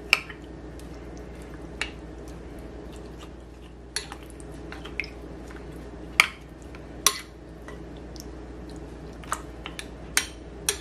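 Metal spoon clinking against a glass bowl as souse is stirred in its brine: about ten separate sharp clinks at uneven intervals, the loudest near the start and about six and seven seconds in, over a steady low hum.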